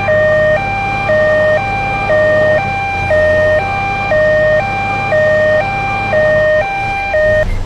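A truck's telolet musical horn sounding a two-note alternating call, switching between a high and a low note about once a second, over the truck's engine running. Horn and engine cut off together near the end.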